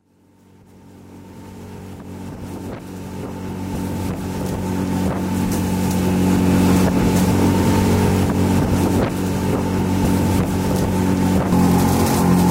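A steady engine drone that fades in from silence over the first several seconds, then holds steady.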